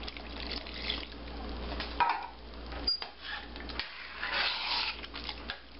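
Water poured from a measuring cup into a stainless steel pot of chili, then a spoon stirring and scraping through the thick chili against the pot, with a few clicks of metal on metal.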